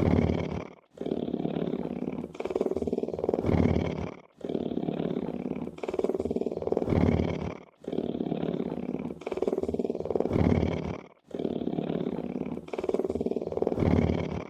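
A big wild cat purring in long rhythmic cycles of about three and a half seconds. Each cycle swells louder toward its end and is followed by a brief break before the next.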